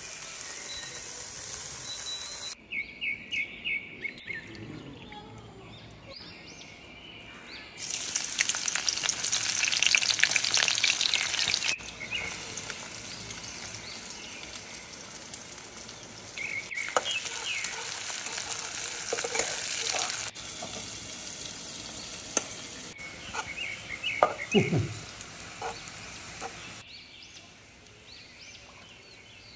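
Onions frying in hot oil in an iron kadai over a wood fire: a steady sizzle with stirring, louder for a few seconds about a third of the way through. Birds chirp briefly now and then.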